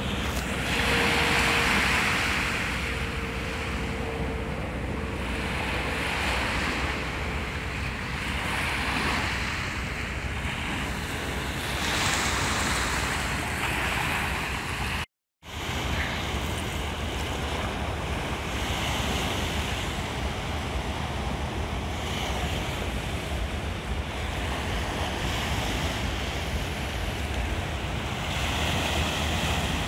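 Small sea waves breaking and washing on a sandy, rocky shore, the surf swelling and fading every few seconds, with wind on the microphone. A faint steady tone sits under the surf in the first third, and the sound cuts out for a moment about halfway through.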